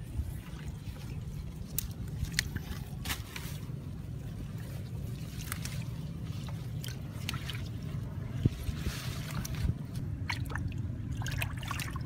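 Hands digging and scooping in a muddy, water-filled hole: wet squelches, small splashes and trickling water, in short irregular bursts that grow busier near the end, over a steady low rumble.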